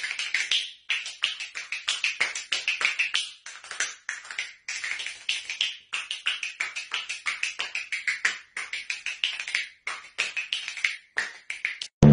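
A fast, uneven run of sharp taps or clicks, several a second, broken by brief pauses.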